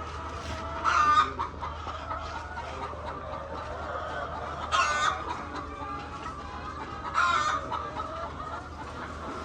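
A flock of laying hens clucking and calling continuously, with three louder squawks about a second, five seconds and seven seconds in.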